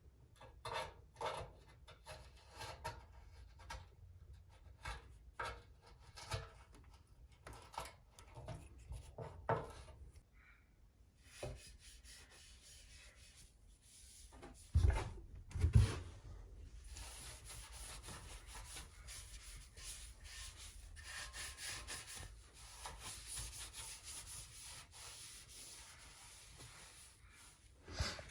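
Old silicone being scraped and cut away from the cast drain outlet of a Venco pottery wheel, in short irregular strokes. Two louder knocks come about halfway through, followed by a steadier rubbing over the second half.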